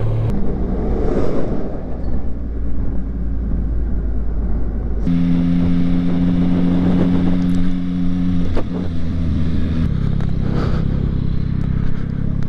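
Motorcycle engines and riding wind heard from on board. At first a low engine rumble under wind noise, then a steady cruising engine note that steps down twice in the second half.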